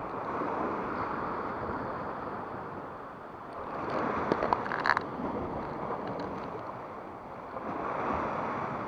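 Sea waves washing against rocks, swelling and easing in turn, with a few faint clicks about halfway through.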